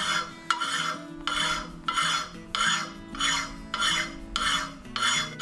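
Hand file rasping across the corner of a 3 mm steel plate held in a vise, in about nine even back-and-forth strokes, close to two a second. Faint background music runs underneath.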